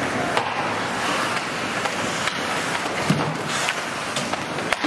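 Ice hockey rink during play: a steady wash of skate-on-ice scraping and arena noise, broken by several sharp clicks of sticks and puck.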